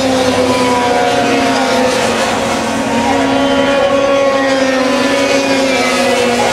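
Several racing snowmobile engines running hard at once on an ice oval, their overlapping engine notes rising and falling as the sleds come through the turns and straights.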